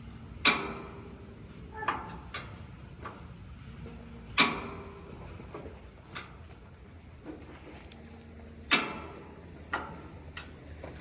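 Push-button igniter on a Blackstone griddle snapping about eight times at uneven intervals, each a sharp click with a short ring, while the burner fails to light.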